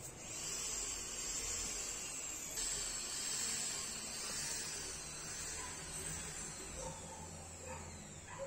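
Steady hiss over a low hum, with a few faint short squeaks near the end.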